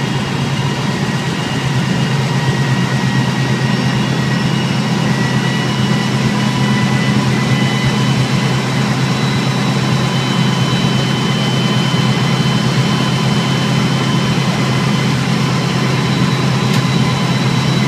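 DXC-class diesel-electric locomotive's engine under a stationary self load test, climbing to full power after a single throttle notch. Its whine rises in pitch and the sound grows a little louder over the first several seconds, then holds steady at full load.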